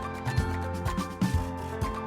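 Background music: a produced track with a heavy bass line and a steady beat, about two beats a second.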